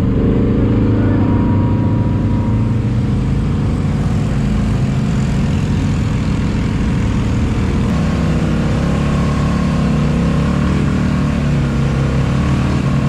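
ATV engine running under way, a steady engine drone whose pitch wavers and shifts with the throttle in the second half.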